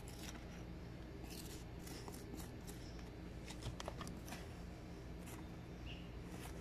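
A metal spoon scraping and scooping into packed sand, in a series of short, faint gritty scrapes about once a second, with sand flicked out of the hole.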